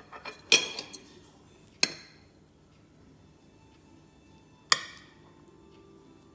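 Dishes and utensils knocking and clinking as a salad is plated: three sharp knocks with a short ring, the first followed by a little rattle.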